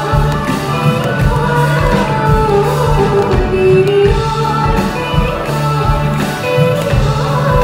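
Live Bollywood song sung as a duet by a female and a male singer over an orchestra of strings, keyboards and drums, with a steady beat, heard from among the audience in a large hall.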